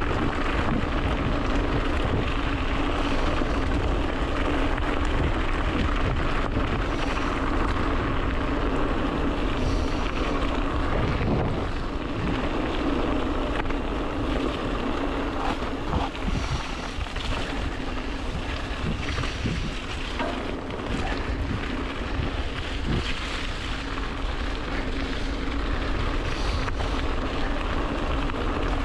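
Mountain bike riding fast downhill on a gravel track: wind rushing over the camera microphone and tyres rolling and crunching over loose stones, with scattered knocks and rattles from the bike over bumps.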